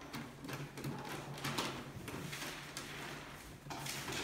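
Scraping and rattling of a grey sheet-metal stationary ballot box as hands work at its lid to open it, in a few short bursts over a steady low hum.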